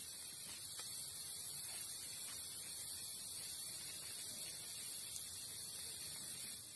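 Steady high-pitched chorus of insects in the rainforest, with a few faint clicks and rustles of gear being handled.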